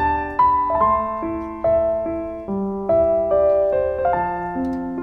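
Background music: a gentle solo piano melody, single notes struck about two to three a second, each ringing and fading away.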